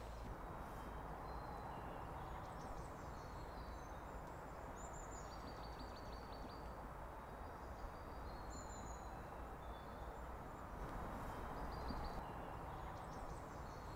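Faint woodland ambience: a steady low background hiss with small birds calling now and then in short, high chirps and a brief trill.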